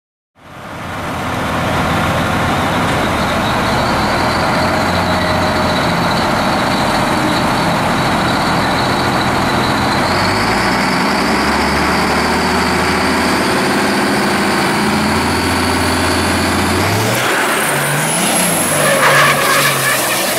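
Diesel drag-racing truck with a Mack engine, running loud and steady with a high whine over it; near the end the engine revs up and the whine rises sharply as the truck launches down the strip.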